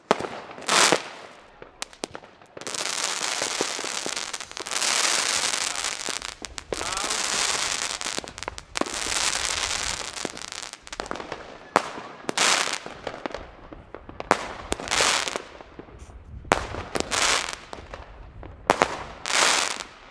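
Category 2 consumer fireworks: a sharp bang about a second in, then several seconds of continuous hissing and crackling. A string of separate sharp pops and bangs follows through the second half.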